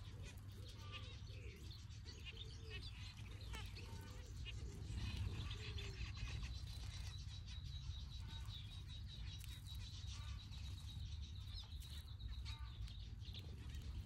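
Mixed aviary birds calling: a dove cooing softly over and over through the first half, among scattered small finch chirps. A thin, high, steady note is held for several seconds from about halfway, over a low background rumble.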